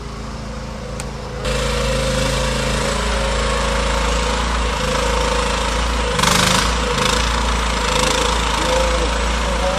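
Mini excavator's diesel engine running steadily, cutting in abruptly about a second and a half in, with a brief louder burst about six seconds in as the machine works.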